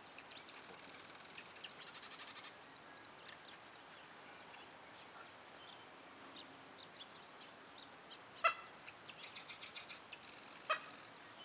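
Birds calling around a cattail-lined pond: a rapid, high, buzzy trill about a second in and again near the end, scattered short chirps, and two short, sharp louder notes in the second half.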